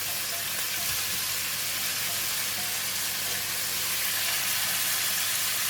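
Bean sprouts and pork slices sizzling steadily in hot oil in a pan as they are stir-fried.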